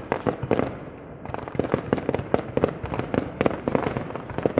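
Aerial fireworks going off in rapid succession, a dense run of sharp bangs and cracks with a brief thinner spell about a second in.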